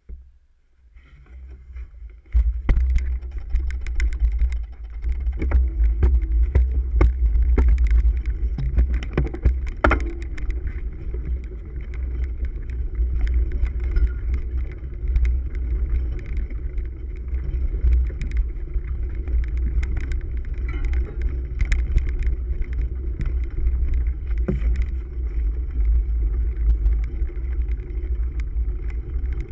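Cyclocross bike ridden over a rough dirt and leaf-covered course, heard through a handlebar-mounted camera: a heavy steady rumble of wind and frame vibration with frequent sharp knocks and rattles from bumps. It starts about two seconds in, after near silence.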